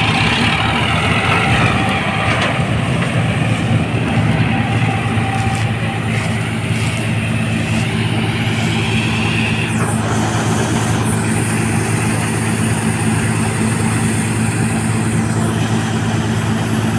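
Preet 987 combine harvester running steadily as it harvests wheat, a loud, even diesel engine drone. A thin high whine joins in about eleven seconds in and stops near the end.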